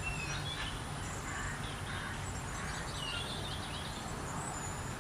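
Steady outdoor background noise with a low rumble, and faint, scattered bird chirps.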